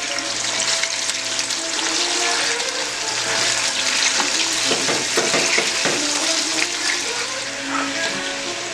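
Pork liempo sizzling as it fries in a pan, a dense steady crackle that grows busier about halfway through.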